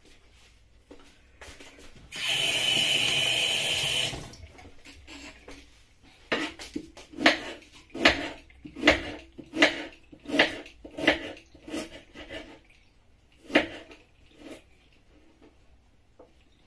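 A kitchen knife cutting through peeled raw tuber into a wooden chopping board: a run of regular knocks about one every three-quarters of a second, then two more after a short pause. Before them comes a louder two-second rush of steady hissing noise, like a tap running briefly.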